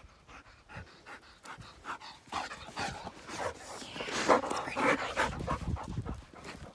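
A dog panting in quick breaths close by, loudest a little past the middle as it comes right up.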